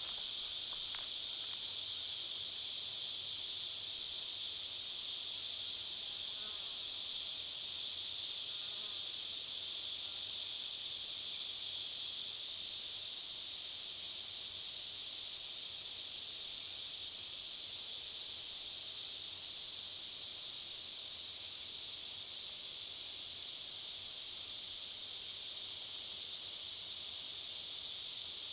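Cicadas chorusing: a steady, unbroken high-pitched buzz that eases slightly in loudness about halfway through.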